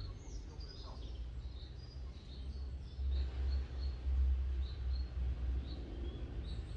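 Small birds chirping in short, repeated calls over a low rumble that swells from about three seconds in.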